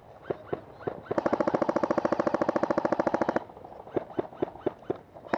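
Airsoft rifle firing a full-auto burst of about two seconds, a rapid, even stream of shots starting a little over a second in. Scattered single sharp cracks come before and after it.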